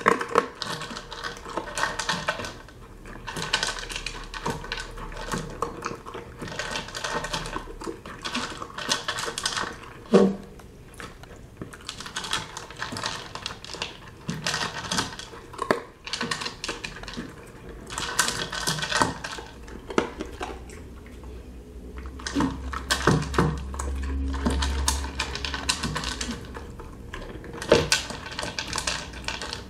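A Weimaraner eating dry kibble from a plastic bowl: rapid clicking and clattering of kibble against the plastic, with chewing, in spells of a few seconds with short pauses, and a few louder knocks of the bowl.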